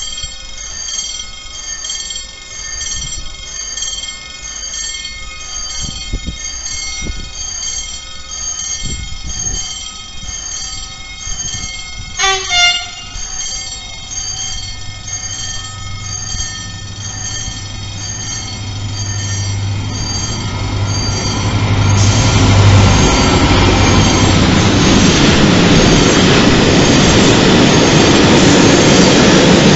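A diesel freight train approaching and passing: a repeating high electronic warning beep sounds while the train comes in, and the locomotive gives a short horn blast about twelve seconds in. Its engine drone grows from about fifteen seconds in, and from about twenty-two seconds the container wagons roll past loudly, with steady wheel and rail noise.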